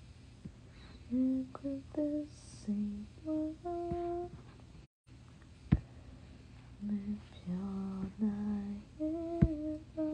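A woman humming a slow tune in short held notes at changing pitches. The sound cuts out completely for a moment about halfway, and a few sharp clicks sound, the loudest near the end.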